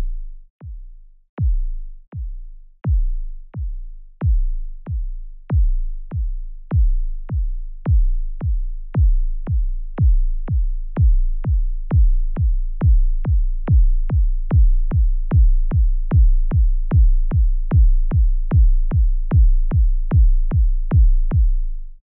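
Electronic suspense sound effect: deep synthesized bass hits, each a short thud that drops in pitch into a low boom. They repeat at about one a second at first and speed up to about three a second near the end, then cut off suddenly.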